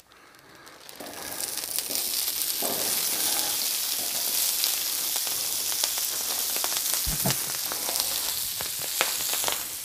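Halved Brussels sprouts sizzling in bacon grease on a hot Blackstone flat-top griddle as they are poured on. The sizzle rises about a second in and then holds steady, with a few sharp ticks.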